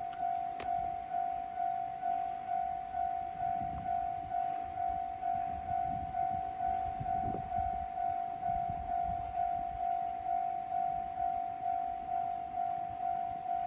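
Japanese level crossing alarm ringing: an electronic warning bell repeating one single-pitched ding at a fast, even rate, warning that a train is approaching.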